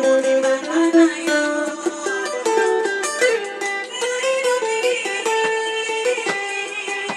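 Electric guitar playing a quick soukous-style lead line of picked single notes that move up and down several times a second.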